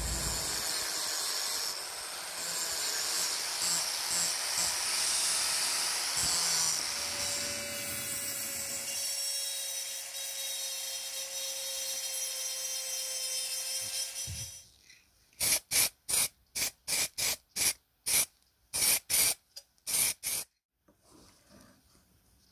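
Handheld rotary tool with a small abrasive wheel grinding the cast iron, running with a high whining hiss for about fourteen seconds. It then stops, and a rapid series of about a dozen short hissing bursts follows.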